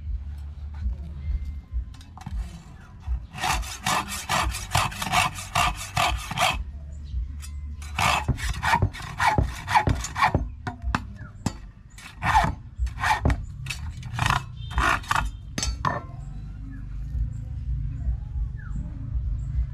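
Hacksaw blade cutting into a thin stainless steel rod, notching the barb of a homemade fishing hook. The sawing comes in quick back-and-forth runs of strokes, starting a few seconds in and again about eight seconds in, then slower single strokes that stop about sixteen seconds in.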